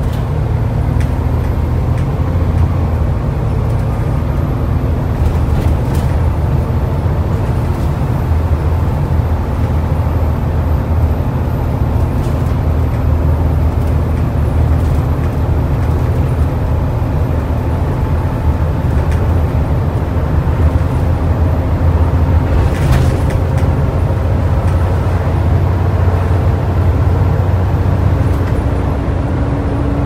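Volvo B7TL double-decker bus's engine running steadily under way, heard from inside the lower deck over tyre and road noise.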